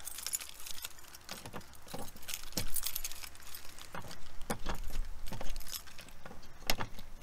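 A large bunch of keys jangling on a key ring in irregular clinks, as one key is picked out and tried in a compartment lock that it doesn't open.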